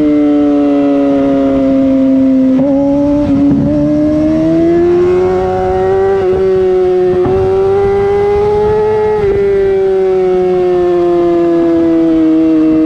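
Yamaha YZF-R6 inline-four engine through a LeoVince full-system exhaust, held at high revs under way. Its note slides slowly down, then up, then down again, with a few brief breaks in it where the quickshifter changes gear.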